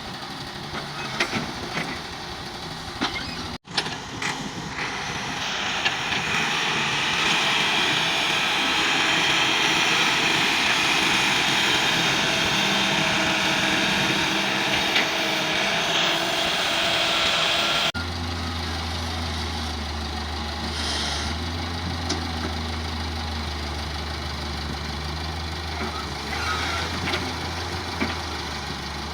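Diesel excavator engine and hydraulics working while loading mud into a tractor trolley. It rises to a louder, strained run for about twelve seconds, then changes abruptly to a steady low drone.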